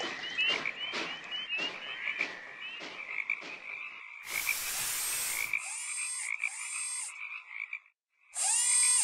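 A cartoon steam locomotive chuffing in a steady rhythm, about two beats a second, with high chirps over it. About four seconds in comes a brief hiss, then frogs croaking in repeated bursts with a short break near the end.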